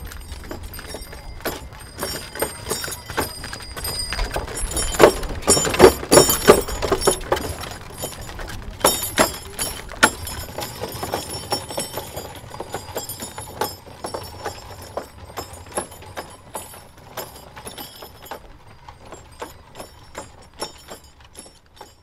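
Bullock cart with bells passing by: the bullock's hoofbeats and the cart's rattling knocks, with small bells jingling. It is loudest about five to seven seconds in, then fades away as it moves off.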